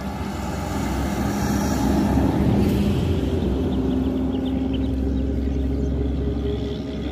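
A steady low engine rumble that swells over the first two seconds and then holds.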